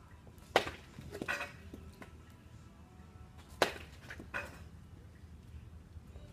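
Baseball bat hitting soft-tossed balls into a practice net: two sharp cracks about three seconds apart, each followed by a softer knock a moment later.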